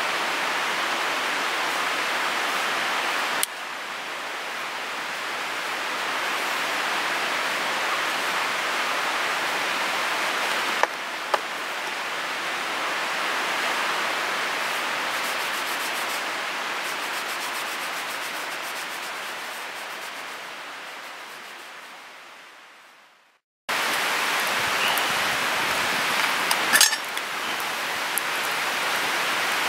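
A steady rushing hiss with no tones. It breaks off sharply twice, fades out about three-quarters of the way through, then returns. Near the end come a couple of sharp metal clinks from a camp pot's wire bail handle as the pot is lifted.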